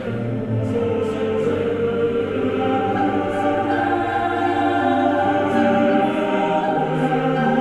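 Background music: a choir singing sustained notes over a held low bass tone.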